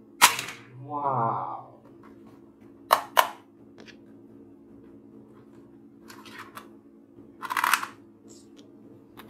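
Sharp plastic clicks of a toy AK-47 dart gun being handled and loaded with a suction-cup dart: one click just after the start, two quick clicks about three seconds in, and a short rasping noise near the end.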